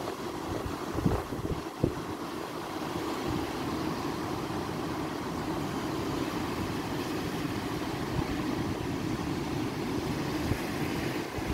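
Surf from a rough sea breaking along the shore, with wind rumbling on the microphone; two short thumps about a second and two seconds in.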